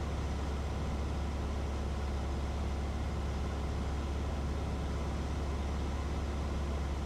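Cessna 150's engine and propeller heard from inside the cabin in flight: a steady low drone with no change in power.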